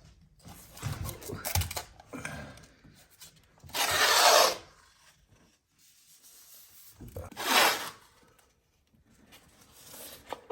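Masking tape being pulled off the roll in two long rips, about four seconds in and again near the end, with smaller rustling and handling noises between.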